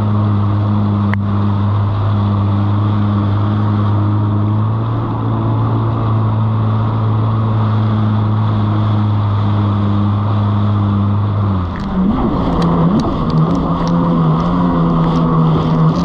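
Kawasaki jet ski engine idling steadily. About twelve seconds in the throttle opens: the engine note changes and rises as the craft pulls away, with more rushing water noise.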